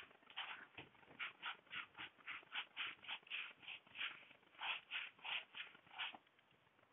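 Whiteboard duster wiping a whiteboard in quick back-and-forth rubs, about three a second, faint, stopping about a second before the end.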